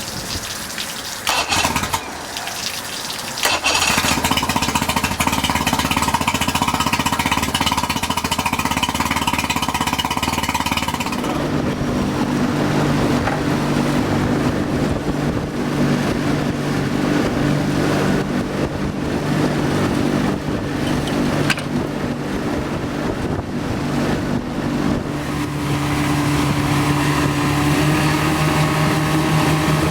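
Mercury 115 hp two-stroke outboard motor starting up about three and a half seconds in and running, busy and noisy at first, then settling into a steadier idle about eleven seconds in. This is its first run on newly fitted, correctly sized fuel hoses.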